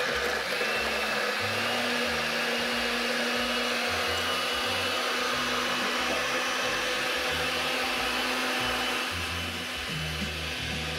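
Countertop blender running steadily, its motor noise carrying a thin steady whine as it purées a watery green smoothie until smooth; it eases off a little near the end.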